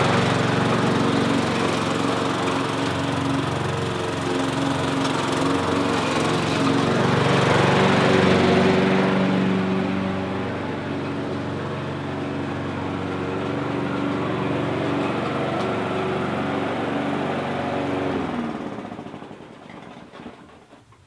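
Victa petrol push mower's engine running steadily under mowing, its level rising and falling as the mower moves about. A few seconds before the end the engine stops and dies away.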